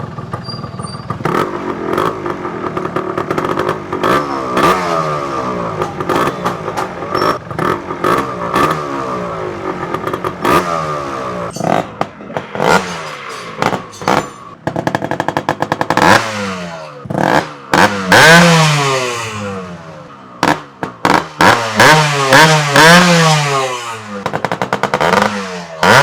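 Yamaha RX135's two-stroke single-cylinder engine revved on the stand through an open-cat silencer packed with glass wool. The throttle is blipped over and over, the pitch rising and falling each time, with sharp pops and cracks in between. The revs climb higher and more often from about halfway through.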